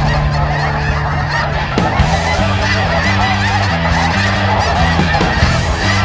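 A large flock of snow geese calling all at once: a dense, continuous chorus of overlapping honks and yelps. Underneath are low, steady notes that change pitch every half second or so, like background music.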